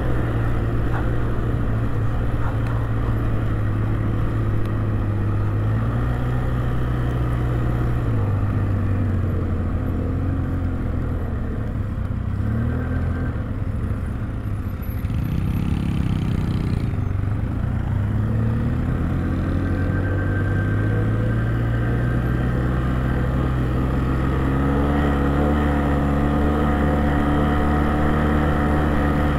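Engine of a Jinling 250 ATV running under way. Its pitch falls away about halfway through, then climbs back up as it speeds up again.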